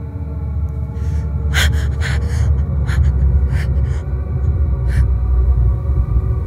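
A woman gasping in a series of short, sharp, frightened breaths over a low droning horror score that swells louder in the first couple of seconds.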